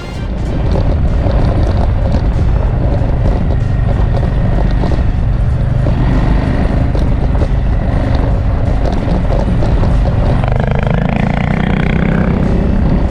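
Adventure motorcycle under way: the engine runs steadily beneath heavy wind rush on the on-bike camera microphone. The sound swells in over the first second and cuts off abruptly at the end.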